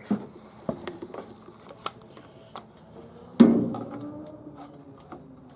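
Metal tools and parts being handled: scattered light clinks and knocks, and one loud ringing metal clank about three and a half seconds in.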